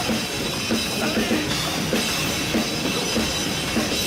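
Background rock music with a steady drum kit beat.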